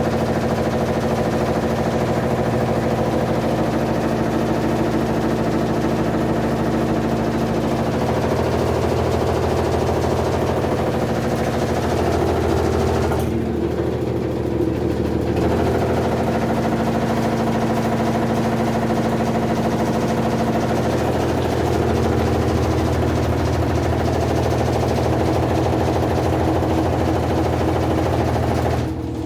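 Electrolux washer-dryer on its spin cycle, running with a steady hum and a fast, continuous rattling. The noise during spin is the sign of a loose drum (basket).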